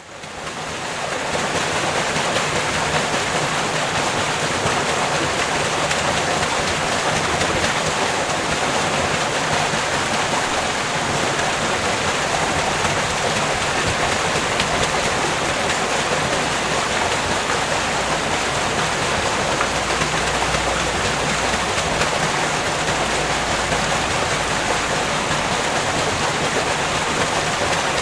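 Water-powered wheel of an old watermill turning, with water rushing and splashing in a steady, dense roar. It fades in over the first second.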